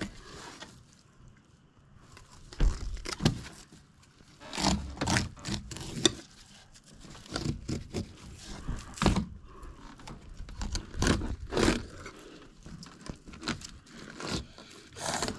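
Fillet knife scraping and cutting along a fish on a plastic cutting board, in irregular bursts of scrapes and knocks with short pauses between.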